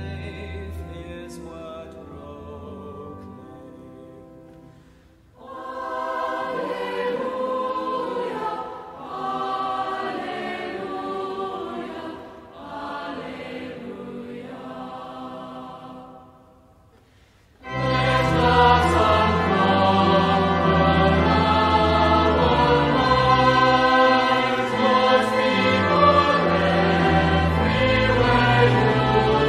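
Hymn sung by a choir with instrumental accompaniment, ending a verse with a hallelujah refrain. There is a brief lull, then the next verse starts louder and fuller about 18 seconds in.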